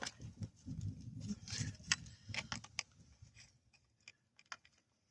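Light metallic clicks and clinks of hand tools and parts being handled at a car battery terminal, with a low handling rustle, thinning to a few faint ticks over the last two seconds.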